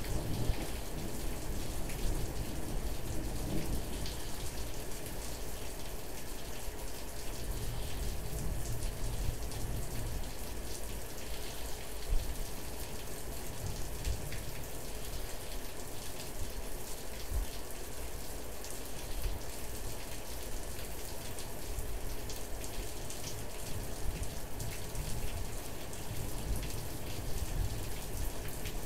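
Steady rain falling, with many individual drops ticking close to the microphone.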